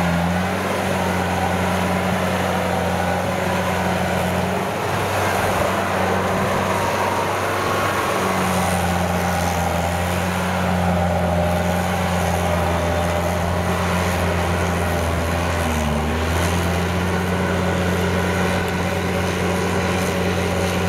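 Kubota DC70 tracked combine harvester, refitted with a rotary tiller, running its diesel engine steadily under load as it tills a flooded rice paddy. The engine note wavers for a few seconds about a quarter of the way in and dips briefly about three-quarters of the way in.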